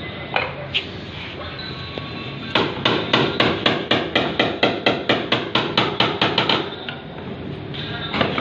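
Body hammer tapping out a dent in a Nissan Sunny's sheet-metal door: a single knock, then a quick, even run of about four blows a second for some four seconds, and one more knock near the end.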